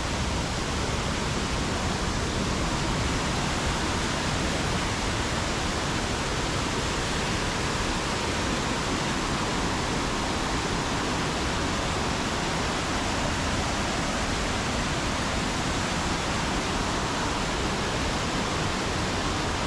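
Waterfall rushing: steady, unbroken noise of falling water.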